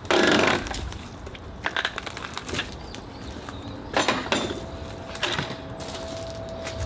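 Rotted wooden deck boards cracking and knocking as they are torn apart, with a loud crash at the start and more breaking and knocks a few seconds later.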